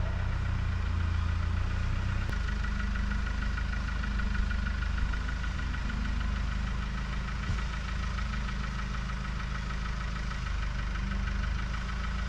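Tractor engine idling steadily, with its low drone shifting slightly about two seconds in. A couple of short knocks sound over it.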